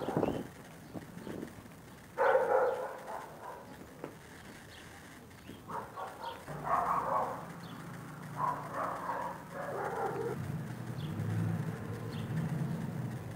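A dog barking: about six short barks spaced one to three seconds apart, stopping about ten seconds in. A low steady hum comes in about six seconds in.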